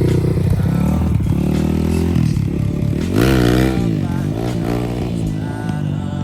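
Dirt bike engine running and revving, its pitch rising and falling several times.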